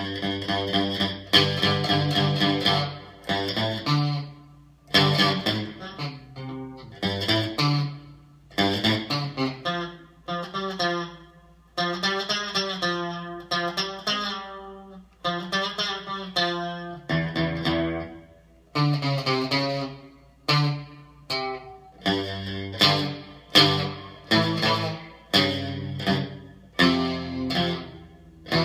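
Electric guitar played through an amplifier: chords and single notes struck and left to ring, stopping briefly every few seconds before the next phrase.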